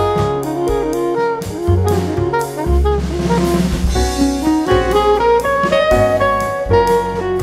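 Background jazz music: a saxophone melody over a drum kit keeping a steady beat.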